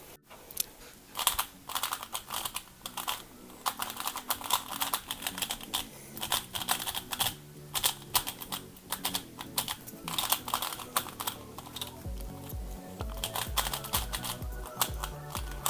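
Valk 3 speedcube being turned, with many quick plastic clicks from the layers turning; the cube is freshly lubed and still heavily lubricated. Background music plays under it, a steady bass beat coming in near the end.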